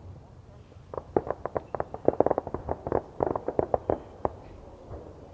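Firecrackers going off in a quick, irregular string of sharp bangs for about three seconds, starting about a second in.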